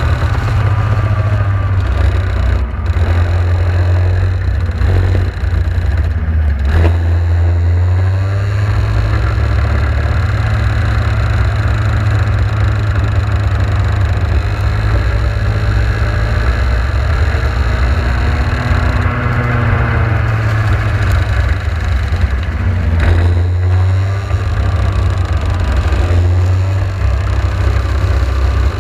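Onboard sound of a Praga Baby 60 racing kart's small engine running hard, its pitch rising and falling again and again with the throttle, over the hiss of tyres throwing up spray on a wet track.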